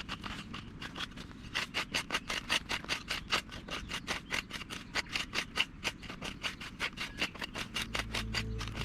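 Rain dripping onto a tent's fabric: a quick, irregular patter of sharp taps, several a second.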